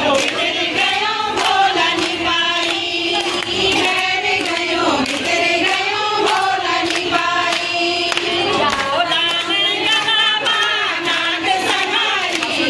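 A group of women singing together in unison, with scattered hand claps.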